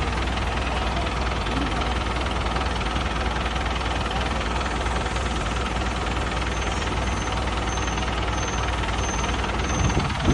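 Diesel engine running steadily at an even speed, with a strong low hum.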